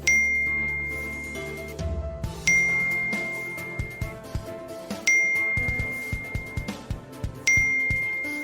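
Background music: a bright bell-like chime note struck four times, about every two and a half seconds, each ringing out over sustained low chords.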